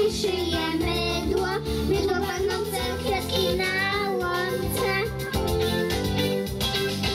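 Young children singing a song together over amplified backing music.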